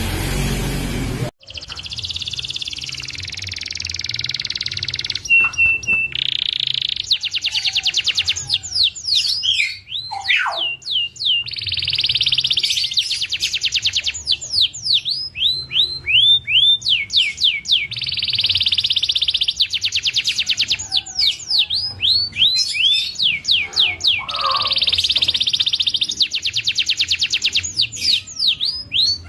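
Domestic canary singing: long, rapid rolling trills alternate with runs of quick repeated down-sweeping notes, with short pauses between phrases. The song follows about a second of loud hiss-like noise that cuts off abruptly.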